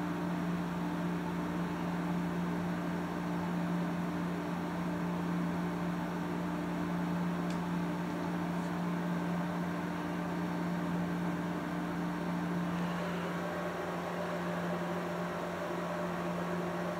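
A steady low hum with a faint hiss over it, unchanging apart from a slight shift in its tone about two thirds of the way through.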